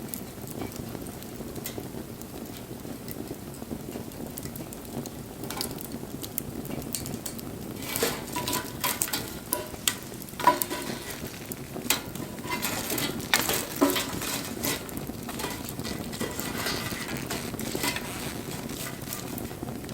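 Wood fire burning with a steady low rush of flame and scattered sharp crackles and pops, which grow busier and louder in the middle for several seconds.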